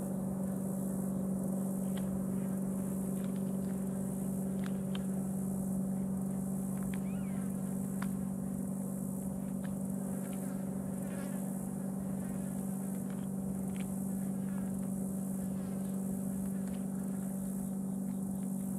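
A steady low hum that holds one pitch throughout, over a faint high hiss, with a few faint scattered clicks.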